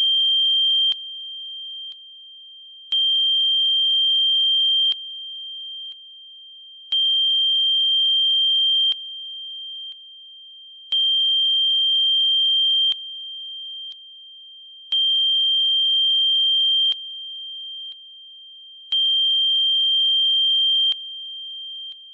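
Electronically generated sine tones: a steady high-pitched tone with a regular pulse every four seconds, in which it grows louder for about two seconds with a lower tone and several higher tones layered on, then steps down twice in level before the next pulse.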